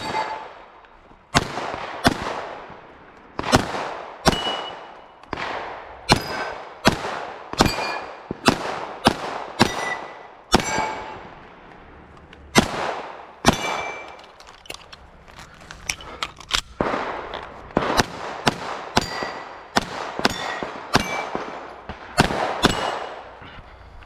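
Gunfire at a steel-target shooting stage: about thirty shots at irregular spacing, mostly a second or less apart, with a lull of a few seconds a little past the middle. Many shots are followed by the brief ring of struck steel targets.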